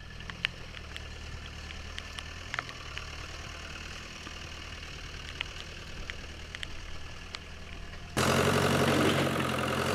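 Fiat Hesston tractor's 80-horsepower diesel engine running steadily as the tractor drives through mud. About eight seconds in, the engine suddenly becomes much louder and closer.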